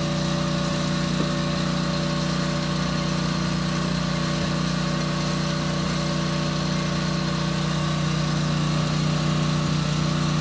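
A small engine running steadily at a constant speed, an even hum that does not change.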